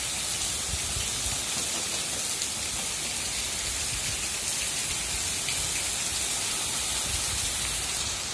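Heavy rain falling steadily on a street and paved yard, a dense even hiss.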